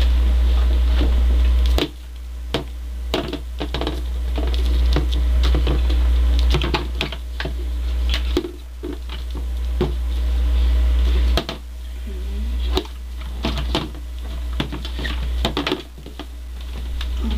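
Irregular clicks and knocks of plastic wrestling action figures and a plush toy being bashed about on a plastic toy wrestling ring, over a loud low hum that cuts in and out several times.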